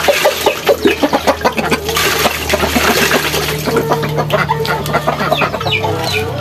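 Water splashing and pouring as dishes are rinsed with a scoop of water over a plastic basin, with chickens clucking in short calls near the end.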